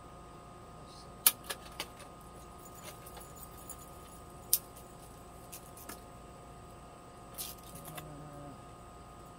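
Light metallic clicks and clatter of measuring tools being handled on a wooden board: a sharp click just over a second in, two smaller ones right after, another click at about four and a half seconds and a little rattling near the end, over a faint steady hum.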